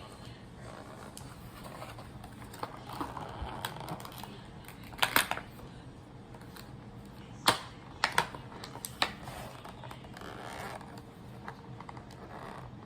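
Small plastic doll parts and packaging being handled: irregular light clicks and rustles, with a few sharper clicks about five seconds in and again around eight seconds.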